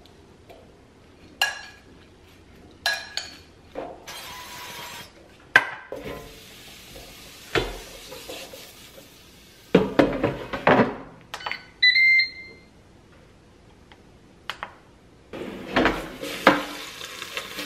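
Kitchen handling sounds: a stainless mixing bowl and a Ninja air fryer's basket clinking and knocking, loudest in a cluster of clatter about ten seconds in. Around twelve seconds the air fryer's control panel gives a couple of short electronic beeps.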